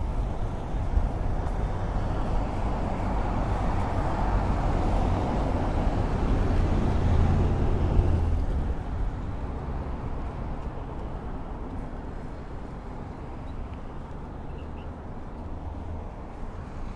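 City road traffic: a vehicle passes close by with a deep engine rumble, loudest about halfway through, then falls away to a steadier, quieter traffic hum.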